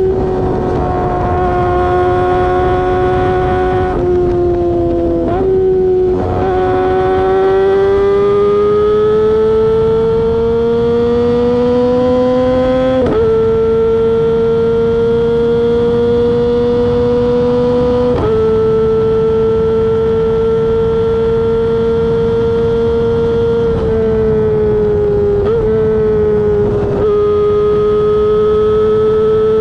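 Kawasaki ZX-25R's 250 cc inline-four engine running at high revs through a LeoVince aftermarket exhaust: a high-pitched, steady wail. The pitch creeps slowly upward and steps abruptly up or down several times.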